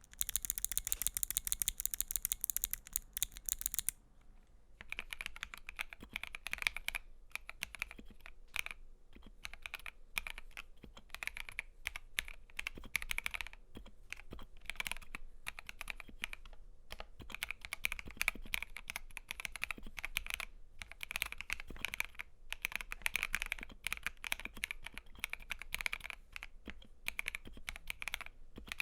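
Typing on an FL.eSports FL680 mechanical keyboard with stock Gateron CAP yellow linear switches, PBT double-shot keycaps and lubed stabilizers: a steady stream of key clacks with short pauses. It opens with a fast, dense burst of keystrokes, then a brief lull about four seconds in.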